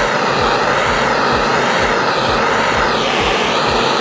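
Propane torch flame burning with a steady rushing hiss, its tone slowly wavering, while heating stainless steel for silver brazing.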